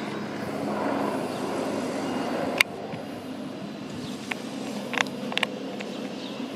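Distant helicopter droning overhead. A sharp click about two and a half seconds in is followed by a quieter drone, with a few faint clicks later on.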